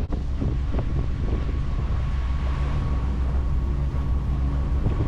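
Wind buffeting the microphone over a sailboat's engine running steadily under way: a low, even hum with a faint steady whine above it.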